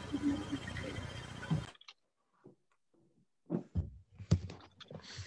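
Steady hiss and room noise on a video-call microphone with a faint high whine, cut off abruptly under two seconds in, followed by a few scattered sharp clicks and knocks.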